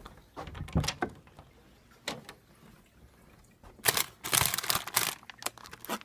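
Clicks and knocks of a cupboard door being opened by its knob, then about a second of loud rustling about four seconds in as a food box is pulled off the shelf.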